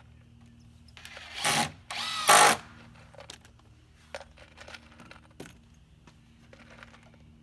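Power drill running in two short bursts about a second and two seconds in, the second louder, driving screws into rafter timber. Light knocks and clicks of handling follow.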